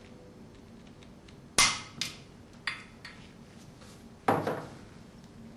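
Torque wrench on the steel shaft-coupling screws of a Grundfos TP inline pump: sharp metallic clicks and knocks, a loud one about a second and a half in, a few lighter ones after it, and another loud knock a little past four seconds.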